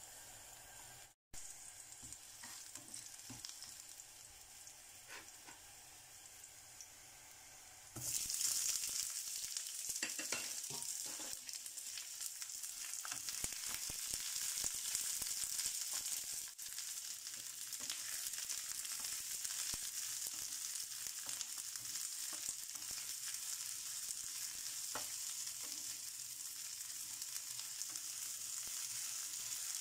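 Garlic sizzling gently in hot oil in a frying pan; about eight seconds in the sizzling turns much louder once sliced onion is in the pan, with a wooden spatula scraping and tapping as the onion is stirred.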